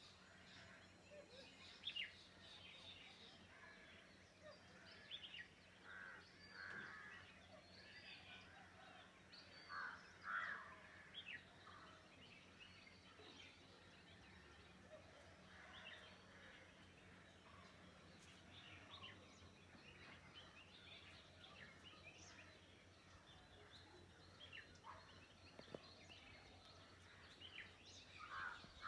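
Birds calling: many short, scattered calls and chirps from several birds, faint, with a few louder calls about 2 and 10 seconds in and a busier run near the end.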